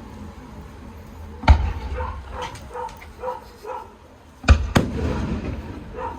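Aerial fireworks bursting: one sharp boom about a second and a half in, and two more in quick succession about four and a half seconds in, each with a rumbling tail. Between and after the bursts, a Shiba Inu gives a run of short, quick barks at about two to three a second.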